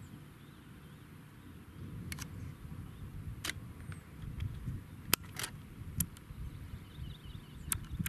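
Wind buffeting the microphone as a choppy low rumble, with about eight sharp clicks scattered through it.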